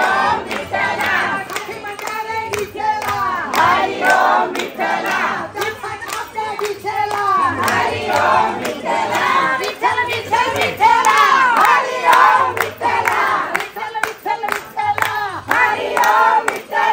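A group of people singing a devotional song together, clapping their hands in a steady beat of about two to three claps a second.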